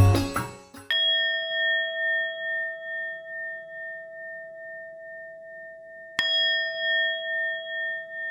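Music stops, and a metal bell-like tone is struck, ringing on with a slow wobble. It is struck again about five seconds later.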